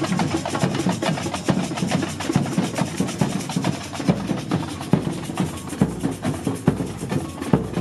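Samba percussion band playing drums in a fast, dense rhythm of strokes.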